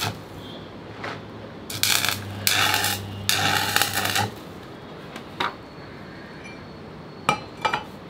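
Stick arc welding: the electrode's arc crackling and sizzling in three short runs over the first four seconds, with a steady low hum under each run. A few sharp metallic clinks come near the end.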